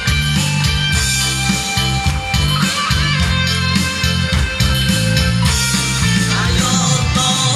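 Guitar-led band music, with a bass line moving note to note underneath.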